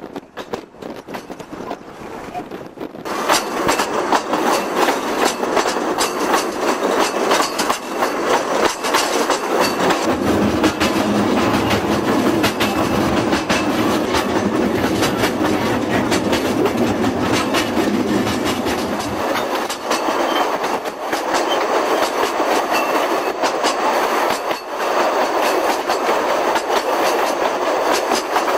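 Narrow-gauge train running along the line, its wheels clattering over the rail joints; the noise jumps up about three seconds in and then stays loud and steady.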